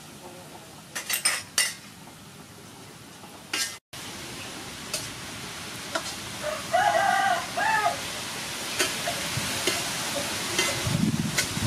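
Beef frying in a hot wok as it is stirred, a steady sizzle with clicks and scrapes of a metal spoon and spatula against the pan. The sizzle grows louder about four seconds in, and a rooster crows once in the background around the middle.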